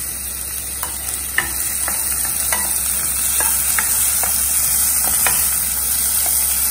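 Diced capsicum sautéing in butter and oil in a stainless steel pot: a steady sizzle, with scattered light clicks and scrapes of a spoon stirring against the pot.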